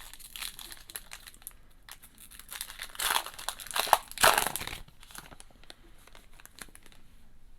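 A baseball card pack wrapper crinkling and being torn open, with the loudest tearing from about three to nearly five seconds in and lighter crinkles before and after.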